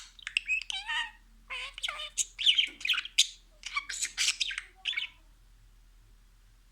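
Budgerigar chattering and warbling in quick high chirps and squawks, stopping about five seconds in.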